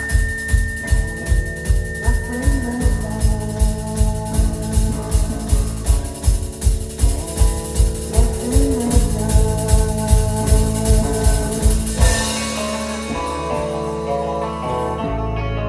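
Live band music without vocals: a drum kit keeps a steady beat under sustained guitar and keyboard tones. About twelve seconds in the drums drop out and the held tones ring on.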